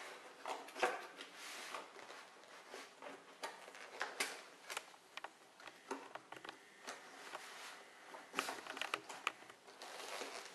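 Cardboard box being handled and opened on a tabletop: irregular scraping, rustling and sharp taps as the flaps and lid are worked loose, with a cluster of sharper clicks about two-thirds of the way in.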